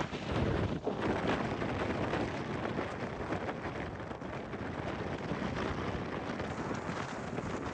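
Blizzard wind blowing hard and steadily, a rushing noise that is a little stronger in the first second or so.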